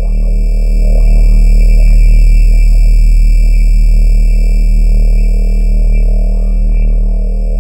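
Synthesized sci-fi subspace distortion sound effect: a loud, deep, steady hum layered with steady tones up to a high whine. Short rising chirps recur about every second over the hum.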